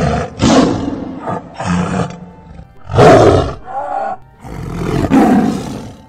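Tiger roaring and growling: a run of about five rough calls with short gaps between them, the loudest about three seconds in and a long one near the end.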